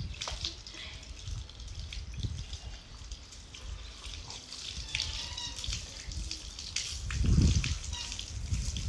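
Water splashing and dripping as a dog is bathed, in small irregular splashes. About seven seconds in there is a brief, louder, muffled low rumble.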